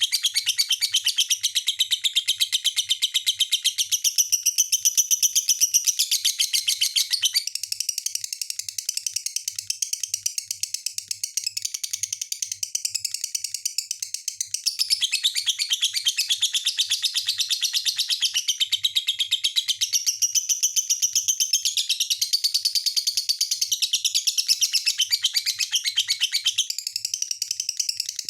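Lovebird chattering: a long, fast, unbroken run of high chirps that eases off briefly a few times and picks up again.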